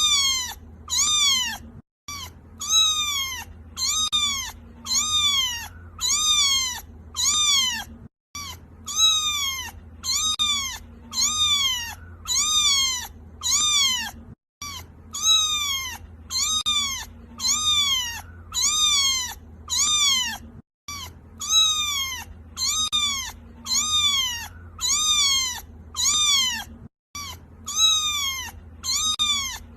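Kitten crying: a fast, unbroken run of high-pitched meows, about one and a half a second, each dropping in pitch at its end. A brief gap about every six seconds breaks the run, as though a short recording repeats. A low steady hum lies underneath.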